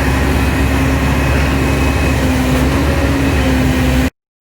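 Loud, steady running of an engine or motor, a constant hum under a wide noise, cutting off abruptly near the end.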